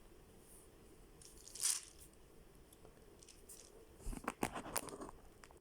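Plastic ball-drum puzzle cube being twisted in the hands: a brief rattle about a second and a half in, then a run of plastic clicks and rattles of faces and balls snapping into place near the end.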